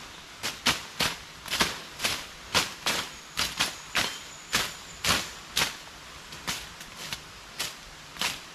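Machetes slashing through forest undergrowth: a steady run of sharp cutting strokes, about two a second.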